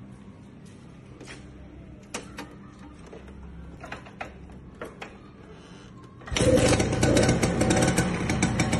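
A 1994 Vespa Corsa Matic's two-stroke engine comes in suddenly about six seconds in and keeps running at idle with a rapid, busy beat. Before it, only faint background with a few light clicks.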